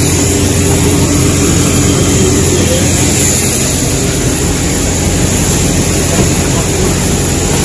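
Steady, loud engine drone with a constant high-pitched whine, heard inside an airport apron bus: the bus's engine and ventilation together with jet engine noise from aircraft on the apron.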